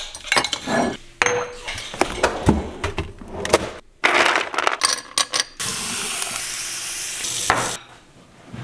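A glass tumbler clinking as it is taken out, then ice cubes clattering into it in a run of sharp knocks. Near the end there are about two seconds of steady rushing, water running into the glass.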